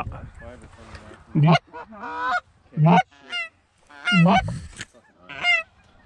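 Snow geese honking: a string of short, sharp calls, some rising in pitch, with short pauses between them.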